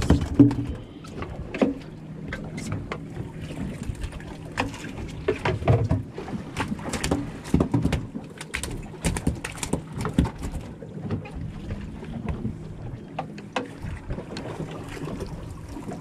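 On-board sound of a small fishing boat at sea: a low steady hum with wind and water, and many scattered sharp clicks and knocks of fishing tackle being handled.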